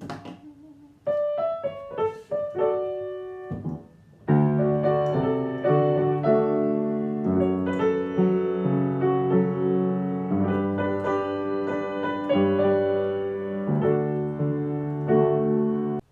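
Piano played by ear: a short run of single melody notes, a brief pause, then full chords with a bass line that cut off suddenly at the end.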